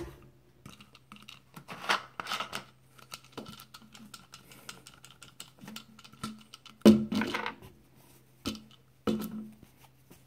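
Irregular clicks, scrapes and rustles of a phone being handled close to its microphone, with a low steady hum underneath; the loudest knock comes about seven seconds in.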